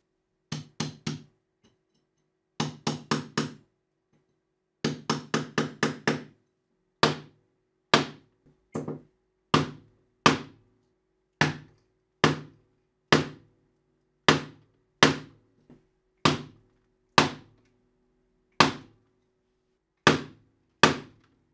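Hammer striking a chisel held on a geode: three short runs of quick light taps, then single harder blows about one a second. The geode holds and does not crack.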